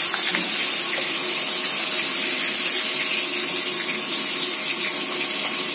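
Hot oil sizzling steadily in a deep-frying pan of cornflour-marinated prawns, an even hiss with no breaks.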